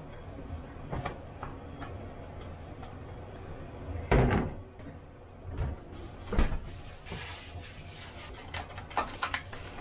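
A round wooden cutting board is set down on a stainless-steel sink drainboard with a knock about four seconds in, followed by another knock a couple of seconds later. Lighter clicks and taps of kitchen handling follow, including a plastic food pack being picked up near the end.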